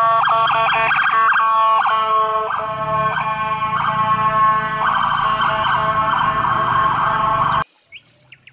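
Electronic police car siren sounding a fast warbling pattern of several tones, which turns harsher and steadier about five seconds in and then cuts off abruptly about a second before the end.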